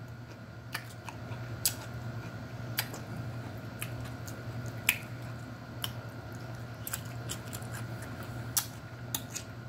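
Close-up chewing of crunchy cucumber slices and celery with dip: scattered short, sharp crunches, over a steady low hum.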